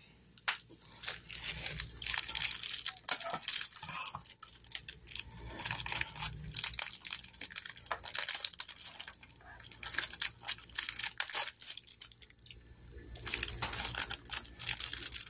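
Irregular crinkling, rustling and clicking of things being handled, probably packaging, on a tabletop. It goes on in uneven spurts and eases off for a moment about twelve seconds in.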